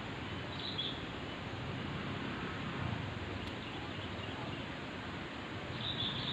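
Steady outdoor background hiss with a bird calling briefly twice, once about half a second in and again near the end.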